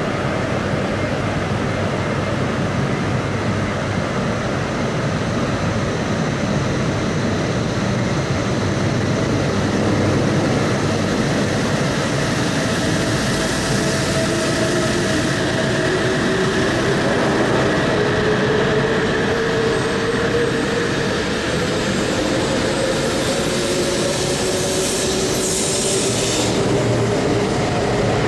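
E956 ALFA-X test Shinkansen pulling away from a platform, its electric traction motors giving a whine that rises slowly in pitch as the train gathers speed, over steady running noise. Two brief hisses come about halfway through and near the end.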